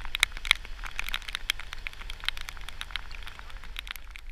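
Heavy rain, drops ticking sharply and irregularly on the microphone, over the hiss of a van pushing through flood water on the road, which thins out about three seconds in.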